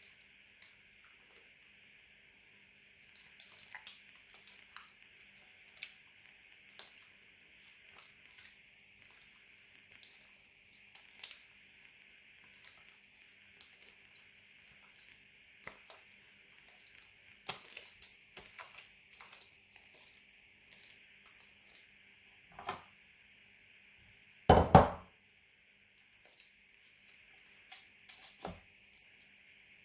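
Glitter slime being squeezed and worked by hand: scattered small sticky clicks and pops, busier in the second half. Loudest of all is a sharp double pop or thump about 25 seconds in. A faint steady hiss runs underneath.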